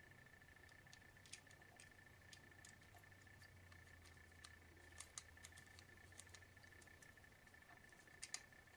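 Near silence: a faint steady high-pitched hum, with scattered faint small clicks and taps, a few louder ones about five seconds in and near the end.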